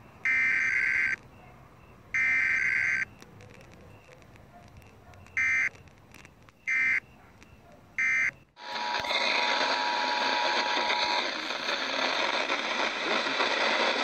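Emergency Alert System SAME data bursts played through a radio: two buzzy header bursts about a second each, then three short end-of-message bursts, as sent for a Required Weekly Test. About two-thirds of the way in it cuts to loud AM radio hiss with a faint steady two-tone attention signal under it for a couple of seconds.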